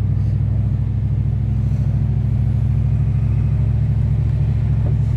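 Holden VH Commodore HDT Group Three's V8 engine running at a steady speed, a low, even drone heard from inside the car's cabin.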